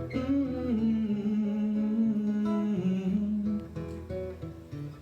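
Acoustic guitar accompanying a sung song, with the singer holding one long note for about three and a half seconds before the guitar carries on alone near the end.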